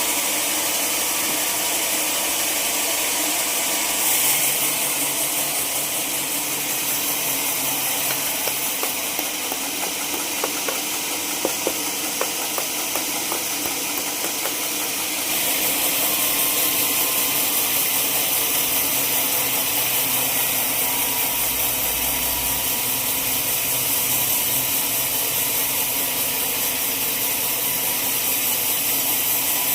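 Sawmill machinery running steadily with a hissing noise, shifting in level about 4 s and 15 s in, with a few sharp clicks near the middle.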